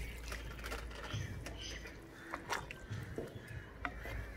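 Water poured from a clay bowl into chickpea curry in a clay pot at the start, then a wooden spatula stirring the curry, with a few light clicks against the pot.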